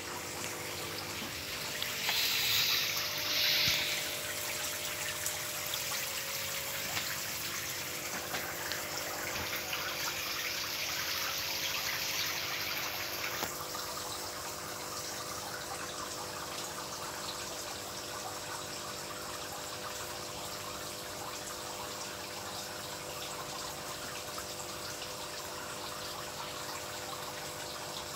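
Water trickling steadily into a cement tank, with a steady low hum underneath. The trickle is louder for a moment about two to four seconds in and becomes softer and duller after about thirteen seconds.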